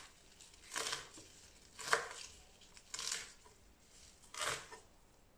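Chef's knife chopping celery on a wooden cutting board: four slow cuts about a second apart.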